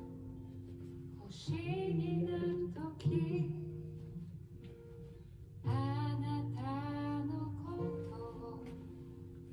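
A recorded song: a woman sings two phrases over guitar accompaniment, with instrument notes held between the phrases.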